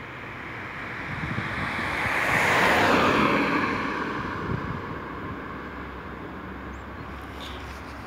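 A road vehicle driving past: its tyre and engine noise swells to a peak about three seconds in, drops in pitch as it goes by, and fades away.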